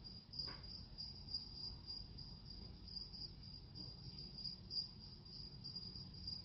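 A faint, steady high-pitched chirring that wavers in strength, over a low rumble.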